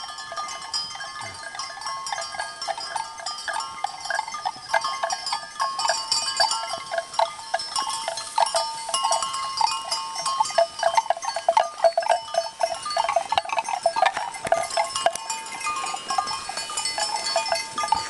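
Bells worn by a herd of cattle clanking irregularly as the animals walk, many bells ringing over one another at different pitches.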